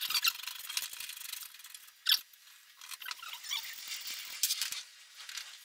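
Steel rock-and-roll bed-seat frame squeaking and scraping as it is worked into place in a VW bus, a run of thin, high-pitched squeaks and scrapes with a sharper one about two seconds in.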